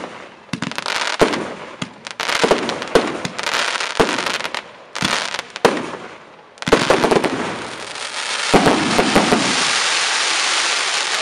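Startrade Showbox L5, an F4 compound fireworks cake, firing: sharp shots and bursts about once a second, each with crackle after it. From about seven seconds in, the effects merge into a dense, steady crackling.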